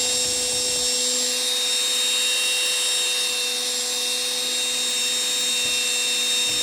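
Handheld electric drill-type mixer running at a steady speed, mixing calf milk replacer in a bucket.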